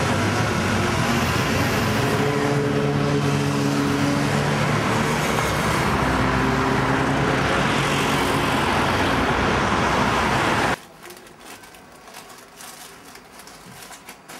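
Busy city-street traffic: passing cars and other motor vehicles with a steady engine hum. It stops abruptly about eleven seconds in, giving way to a quiet room with a few small clicks.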